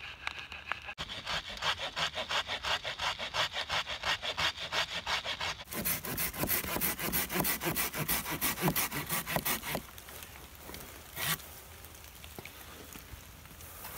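Folding pruning saw cutting through a green branch with rapid back-and-forth strokes, several a second. The sawing stops about ten seconds in, followed by one short burst of sound a second later.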